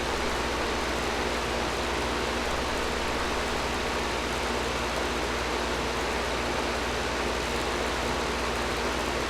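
Air conditioner running steadily: an even rush of blown air with a low hum underneath.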